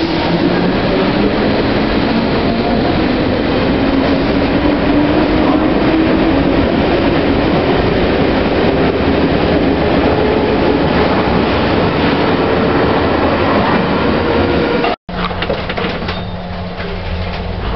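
London Underground C Stock train pulling out past the platform: a loud, steady rumble of wheels and running gear, with a whine rising slowly in pitch as it picks up speed. About fifteen seconds in, the sound cuts off and gives way to a lower, steadier hum from inside a carriage.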